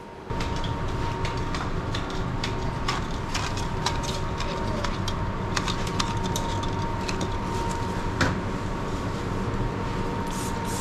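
Steady machinery hum of a factory workroom, with a thin steady tone running through it and scattered light clicks and clatter, as of desserts and trays being handled.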